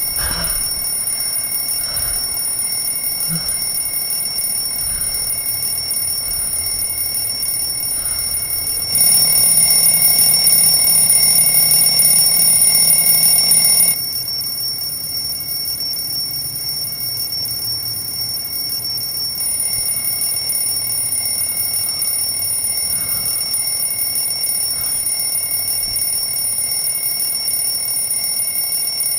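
An alarm clock ringing on and on, a steady high-pitched ring, louder for about five seconds in the middle.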